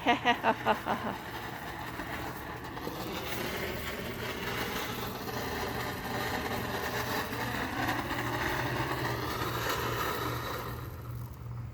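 A ground firework, lit just before, hissing steadily as it burns for about nine seconds with no bang, then fading out near the end.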